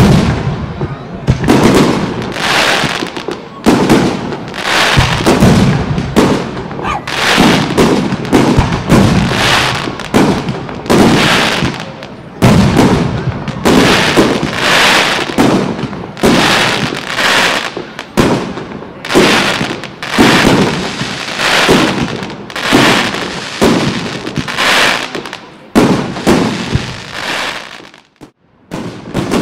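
Aerial firework shells bursting one after another, a sharp boom every second or so, each dying away before the next. The barrage thins to a brief lull near the end.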